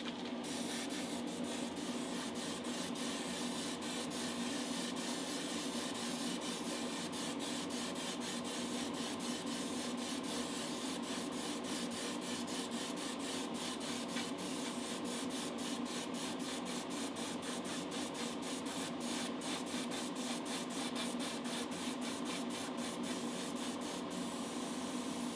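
Airbrush spraying primer with a steady hiss over a constant motor hum, with fast scattered ticking throughout.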